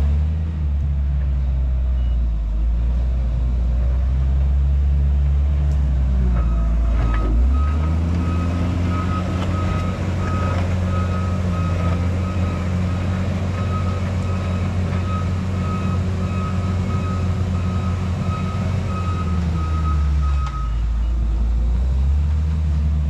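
Heavy diesel engine running steadily. It picks up revs about seven seconds in and settles back near the end. In between, a reversing alarm beeps over and over.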